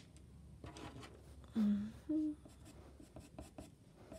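Light scratching and ticking of a pastel pencil on paper, with two short hummed notes about a second and a half in, the second one higher.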